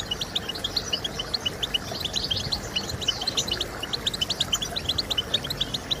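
European goldfinch song: a continuous, rapid twittering of short, high chirps and trills, many notes a second.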